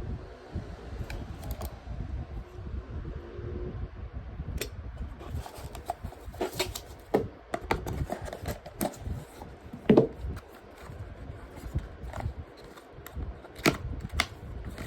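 Handling noise while a gaming mouse is handled: scattered sharp clicks and taps over a low rumble, with a louder knock about ten seconds in.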